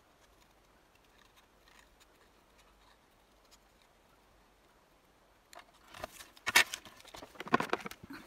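Small scissors making faint, scattered snips as they cut a stamped image out of card. About five and a half seconds in comes a louder, close run of paper rustling and light knocks as the scissors are set down on the cutting mat and the card offcuts are cleared away.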